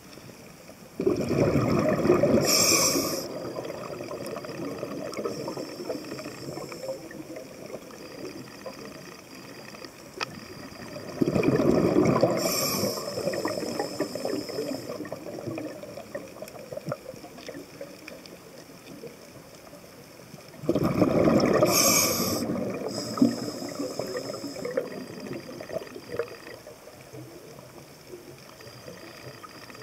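Scuba diver breathing through a regulator underwater: three bursts of exhaled bubbles about ten seconds apart, each ending in a short high hiss.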